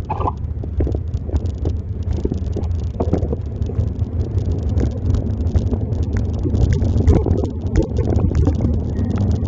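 Wind buffeting the microphone of a bike ride in heavy rain, with a dense patter of sharp ticks from raindrops and spray hitting it, slowly growing louder.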